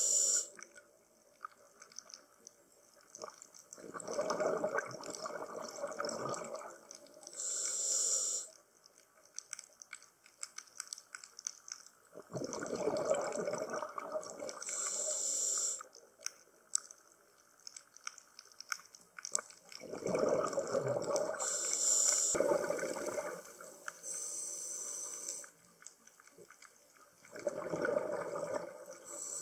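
Scuba diver breathing through a regulator underwater: a short hiss on each inhale and a gurgling rush of exhaled bubbles on each exhale, in a slow cycle of about four breaths with quiet gaps between.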